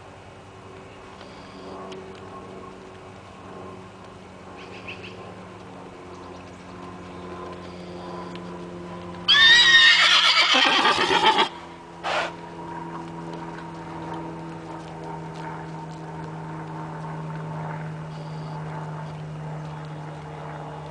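A horse whinnies once, about nine seconds in: a loud, quavering call that falls in pitch over about two seconds, with a short burst of sound just after it.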